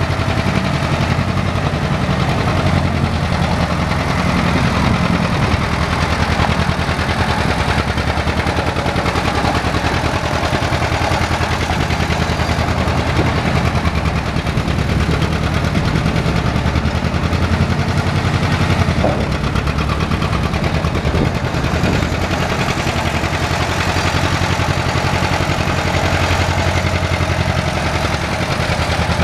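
1956 John Deere 720 LP tractor's two-cylinder engine running at a steady speed with a rhythmic exhaust beat while the tractor is driven slowly.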